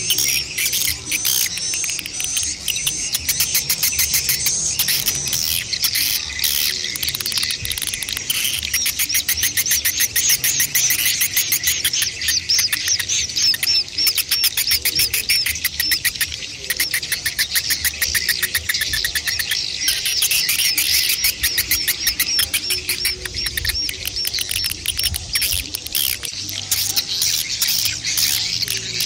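Swiftlet calls of adults and chicks: a dense, rapid stream of high chirping twitters, many a second, the kind of call sound used to draw swiftlets to a nesting house.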